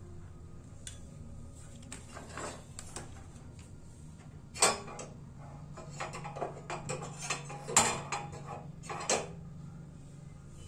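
Small steel ladle clinking and scraping against the gas stove's pan supports as it is shifted on the burner: scattered sharp metallic clicks, the loudest a little under halfway and a cluster in the second half, over a low steady hum.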